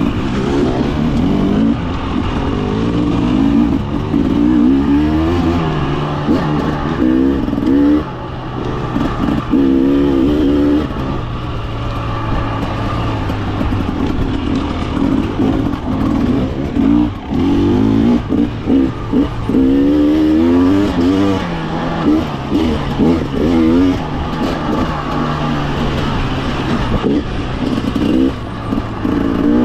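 2024 Husqvarna TE300's fuel-injected two-stroke engine being ridden on a trail, its note rising and falling again and again with the throttle.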